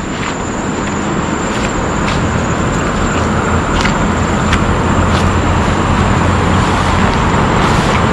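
Footsteps brushing through grass, with a few faint crunches, over a steady rushing noise that slowly grows louder.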